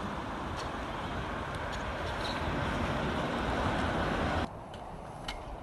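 Steady rushing outdoor noise with a few faint clicks, cutting off abruptly about four and a half seconds in.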